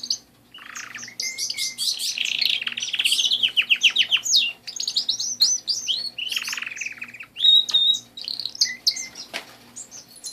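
Domestic canaries singing: fast trills and rolling runs of repeated notes, breaking off briefly just after the start and then continuing.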